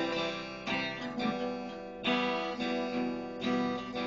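Acoustic guitar strummed in an instrumental break, a fresh chord stroke roughly every second with the strings left ringing between strokes.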